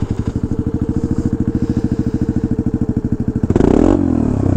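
Honda Navi 110's small single-cylinder four-stroke engine running through a Yoshimura RS2 exhaust with the silencer in. It idles with a fast, even chuff, then is revved once about three and a half seconds in: louder, the pitch rising and falling back.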